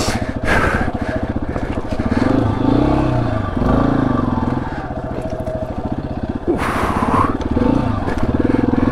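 Yamaha XT250's single-cylinder four-stroke engine running at low revs, its pitch rising and falling as the throttle is worked over rocky ground. Loose stones crunch and clatter under the tyres, with a brief scraping rush about seven seconds in.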